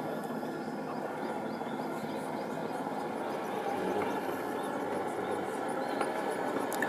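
Traxxas TRX-4 RC crawler's electric motor and geared drivetrain whirring steadily as it crawls slowly over rock, with a few small ticks from the tyres and chassis on the stone.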